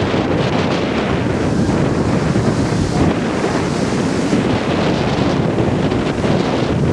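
Gusty wind buffeting the camera microphone: a loud, steady rumbling noise that covers the field sounds.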